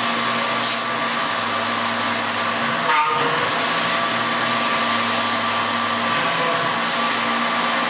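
Tormach CNC mill spindle running a 1/4-inch end mill through a metal plate: a steady machining whine with several held tones over a hiss. About three seconds in there is one brief sharper sound.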